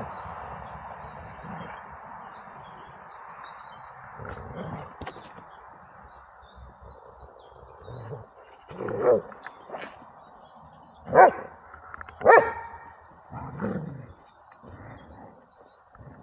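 Dobermann barking: four or five short, sharp barks about a second apart in the second half, the middle two the loudest.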